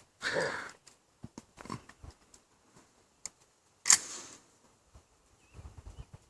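A few small, sharp clicks and knocks of handling, the loudest and sharpest about four seconds in with a brief ring after it. A soft breathy sound comes just at the start.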